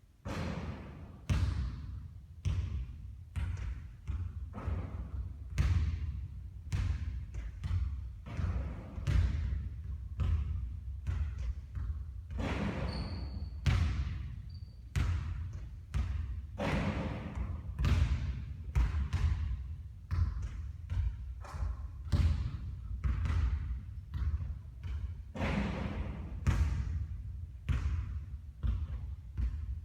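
Basketballs bouncing on a court floor during three-point shooting practice: a steady run of irregular thuds, about one or two a second.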